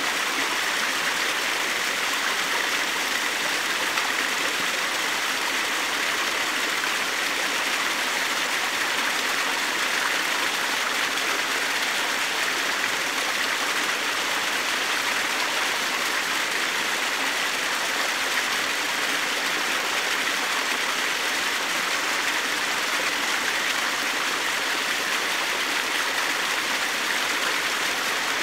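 Shallow stream of running water, a steady unbroken rush of water noise.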